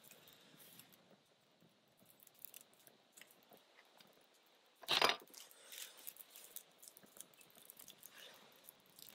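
Campfire of birch bark and split wood just catching, crackling faintly with scattered small pops. One short, louder crackle or knock about five seconds in.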